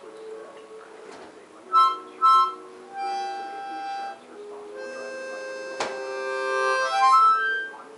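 Harmonica played in short chord blasts and then longer held notes and chords, with a single sharp click near the middle.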